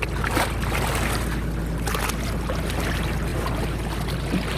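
A fishing boat's engine running steadily, with water splashing around the hull.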